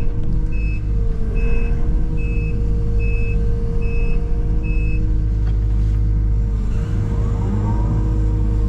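Engine of a bucket-equipped work machine running steadily, its backup alarm beeping a little faster than once a second and stopping about five seconds in.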